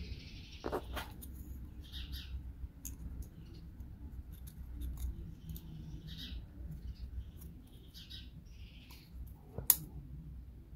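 Thin laser-cut wooden model-kit pieces clicking and scraping between fingers as they are pressed and fitted together, with one sharp click near the end as a part snaps into place.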